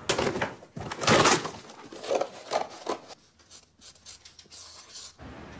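A large piece of cardboard being torn by hand: several ripping strokes in the first three seconds, the loudest about a second in, then fainter scraping and rustling of the cardboard.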